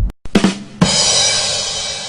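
Drum sting: two quick drum hits, then a bass drum and cymbal crash on the third beat, the cymbal ringing for over a second before it is cut off. This is the classic 'ba-dum-tss' rimshot effect.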